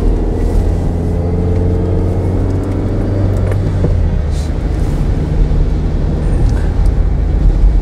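Dacia Logan MCV's 1.6-litre 16-valve four-cylinder engine pulling steadily in gear, heard from inside the cabin over a strong low road rumble.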